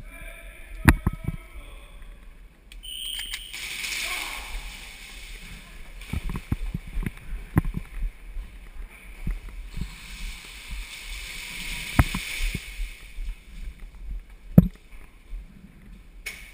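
Rustling movement noise that swells twice, with a few sharp clicks or knocks.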